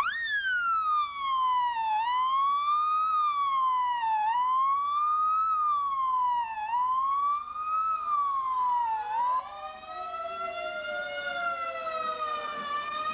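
Ambulance siren wailing, its pitch rising and falling about every two seconds. About nine seconds in it changes to a slower wail, with a second siren tone gliding down beneath it.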